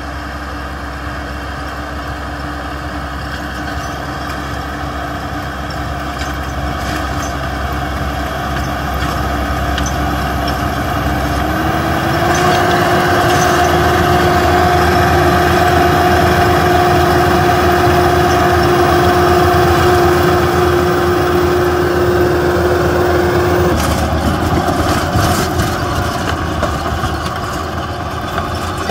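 A Yanmar YT490A tractor's diesel engine running steadily under load while it drives a rotary tiller through the soil, with a steady whine over it. It grows louder toward the middle as the tiller passes close and eases off near the end.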